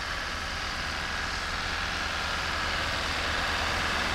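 Car engine running steadily at low revs, with a low hum that grows slowly louder.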